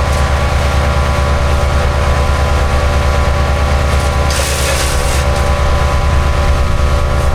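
MechMaxx B200 wood chipper's gasoline engine running steadily at speed, with a brief burst of high hissing noise about four seconds in.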